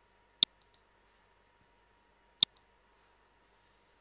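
Two computer mouse-button clicks about two seconds apart, each a sharp click followed by a fainter tick, over faint steady background hum.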